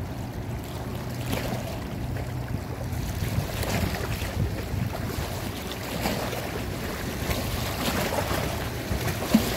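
Wind buffeting the microphone, with choppy sea water lapping below.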